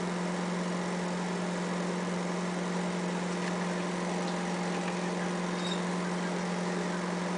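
Steady low hum of a running kitchen appliance motor over an even hiss, with a few faint ticks.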